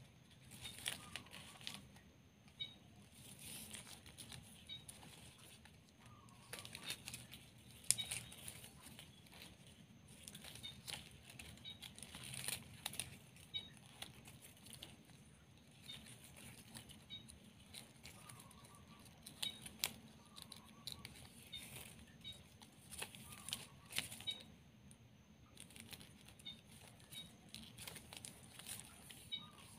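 Glossy plastic ribbon crinkling and rustling as fingers fold and weave the strips, with frequent sharp crackles.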